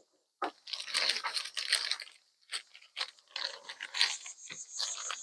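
Packaging being handled and opened: irregular crinkling, crunching and tearing of plastic or paper wrapping in short bursts.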